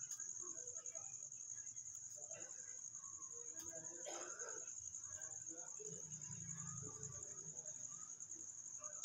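A cricket trilling steadily in a faint, continuous high-pitched pulse, with faint scattered background noises underneath.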